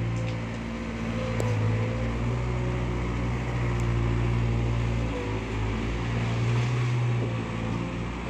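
Skid-steer loader's diesel engine running steadily while the machine works, a low hum with a higher whine that wavers in pitch.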